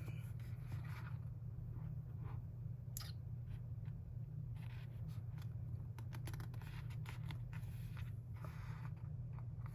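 Faint paper handling: scattered light ticks and rustles as fingers touch a sticker book's pages and a planner page, over a steady low hum.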